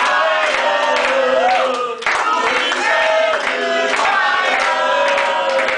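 A group of men and women singing a birthday song together in unison, with hand clapping along.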